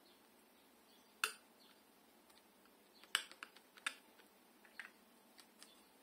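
Steel palette knife clicking and tapping against paint and board: a few sharp clicks, the loudest about a second in and a quick cluster around three to four seconds.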